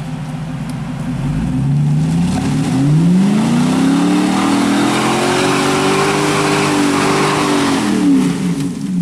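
Lifted Chevrolet Silverado Z71 pickup's engine revving hard as the truck claws out of mud, its tyres spinning and throwing dirt and mud. The revs climb over a couple of seconds, hold high with a loud spray of dirt over them, then drop near the end.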